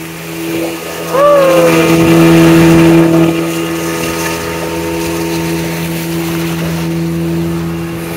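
Speedboat engine running steadily at speed with a constant drone, and water and wind rush that swells louder from about one to three seconds in. A short rising-then-falling voice cry comes about a second in.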